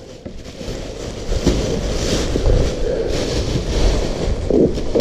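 Black plastic bin bags rustling and crinkling as they are pulled off and bundled up by hand.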